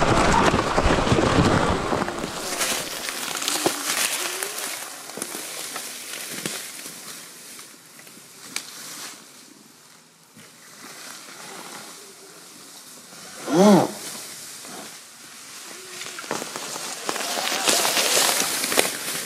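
Sur-Ron electric dirt bike riding a rough trail: wind on the microphone at first, then a quieter stretch of rattles and scattered knocks from the bike over rough ground. About fourteen seconds in there is a brief voice call, and near the end a louder rush of wind.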